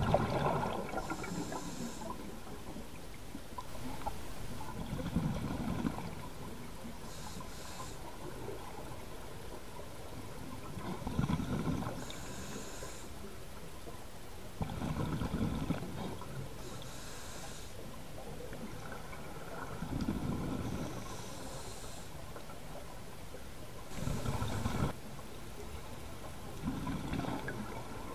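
Scuba diver's breathing heard underwater through the regulator: a bubbling rush of exhaled air about every four to five seconds, with a thin hiss of inhalation between them.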